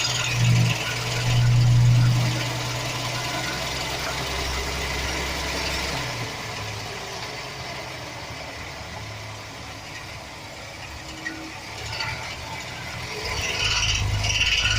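2007 Chevy Express 4.3 L V6 engine running at idle with a rattle, which the owner puts down to a bad starter motor gear bumping against the flexplate. The steady low hum is louder at first, fades in the middle and comes back near the end.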